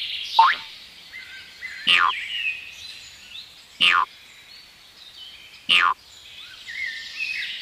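Added background soundtrack of bird-like chirps and twitters, with a sharp falling 'boing'-like sweep repeating about every two seconds, four times.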